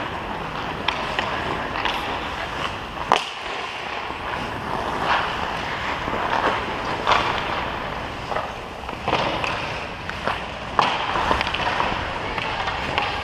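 Ice hockey skate blades carving and scraping on rink ice, with short, sharp clacks and scrapes every second or two over a steady low rumble.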